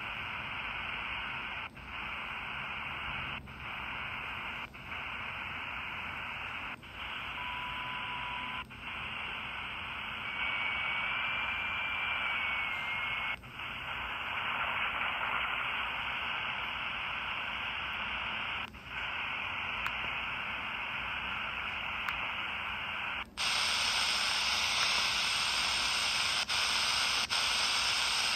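4732 miniature shortwave radio receiver playing steady static hiss with no station, cut by short dropouts every second or two, with a couple of faint brief whistles. The hiss turns brighter about 23 seconds in. This is the poor reception the set gives on its shortwave bands.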